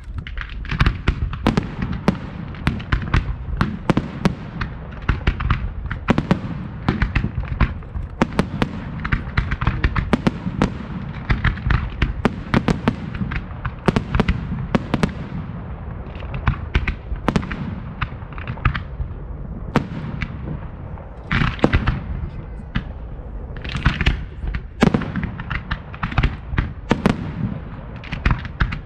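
Fireworks display: a dense, continuous barrage of sharp bangs and crackling bursts over a heavy low rumble, with a few louder clusters of bangs in the second half.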